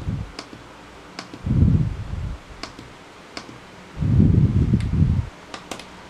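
Button clicks on a digital alarm clock as it is set, several at uneven intervals. Two low, noisy whooshes about a second long, the loudest sounds, come between them.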